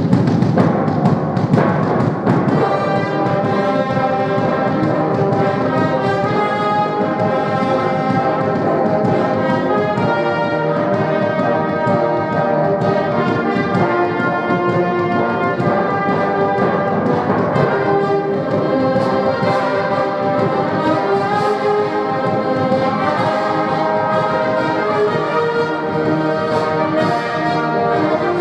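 Orchestral music led by brass instruments, holding sustained chords at a steady level.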